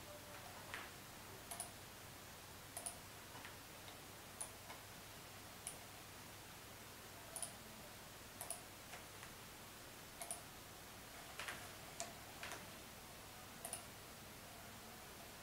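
Computer mouse clicking, a dozen or so short sharp clicks at uneven intervals over a faint steady hiss.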